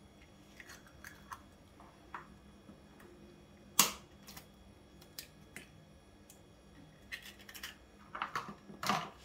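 A metal fork tapping and cracking eggshells open over a plastic mug: scattered light clicks and cracks, the sharpest about four seconds in and a quick run of taps near the end.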